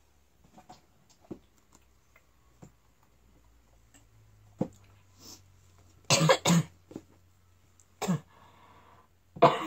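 A sick person coughing in short bursts: a double cough about six seconds in, another cough about eight seconds in, and one more near the end.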